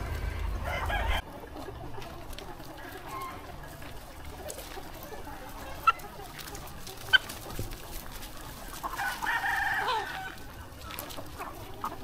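Free-range flock of chickens clucking and calling, with a rooster crowing once near the end. A low rumble stops abruptly about a second in, and two brief sharp calls stand out in the middle.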